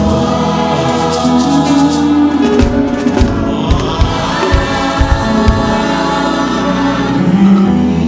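Church choir singing a Yoruba hymn with instrumental accompaniment. Several deep thumps sound in the middle.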